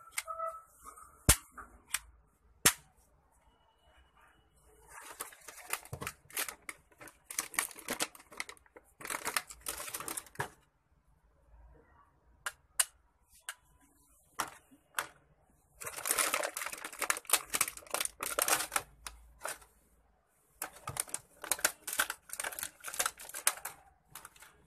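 Hard plastic toy parts and packaging being handled: two sharp clicks, then long spells of rapid clicking and rattling with short quiet gaps between.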